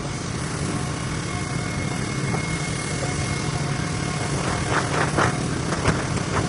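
An engine running steadily with a low hum and an even hiss, a faint steady high tone above it; a few short crackles come in near the end.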